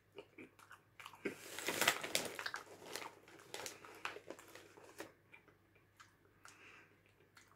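A snack bag rustling and crinkling as a hand reaches into it, loudest between about one and two and a half seconds in, then popcorn crunching as it is chewed, with scattered soft crackles and clicks.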